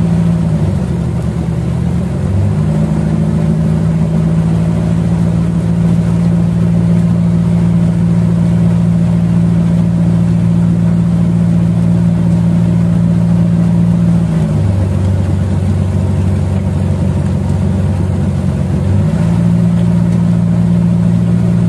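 Boat engine running at a steady drone close by, with water churning in the wake. Its pitch drops as the throttle eases off near the start and again for about four seconds two-thirds of the way through, then comes back up each time.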